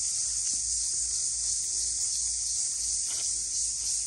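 Steady, high-pitched chorus of insects droning without a break.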